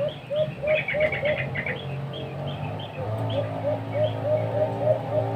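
Wild doves cooing in two runs of short, repeated notes, about three a second, with smaller birds chirping higher up, including a quick chirping series about a second in.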